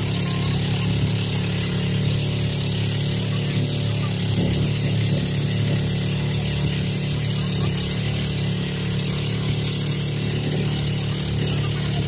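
Outrigger boat (bangka) engine running steadily at cruising speed, a low even drone, with a hiss of wind and water over it.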